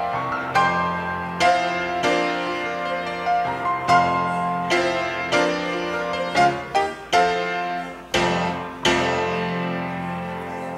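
Solo piano playing slow chords, each struck and left to ring. The last chord, struck a little before the end, is held and fades.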